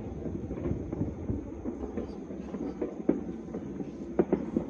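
Many distant fireworks and firecrackers going off at once, a steady crackling rumble with a few sharper pops standing out, two of them close together near the end.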